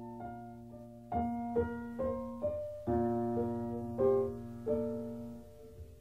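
Piano music: slow notes and chords struck about every half second, each ringing and fading, dying away near the end.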